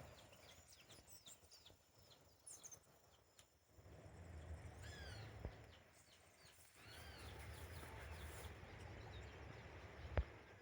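Faint birds chirping and calling, short arched calls scattered through, over a low outdoor rumble that comes and goes, with a sharp knock near the end.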